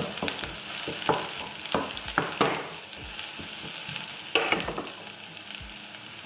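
Sliced green peppers and chopped garlic sizzling in oil in a nonstick frying pan, with a steady hiss. A wooden spatula stirs them, scraping across the pan several times, mostly in the first few seconds and once more later.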